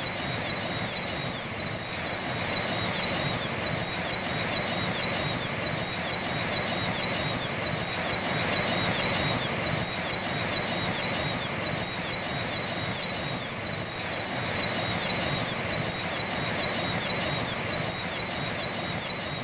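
A flock of seabirds calling without pause, many short, high, downward-sliding calls overlapping, over a steady rush of sea waves.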